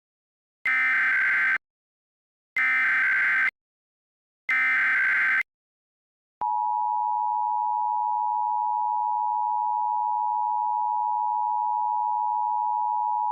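Emergency Alert System SAME header: three one-second bursts of digital data tones about a second apart. About six seconds in, the EAS two-tone attention signal (853 and 960 Hz) starts and holds steady. Together they open an Illinois required monthly test alert.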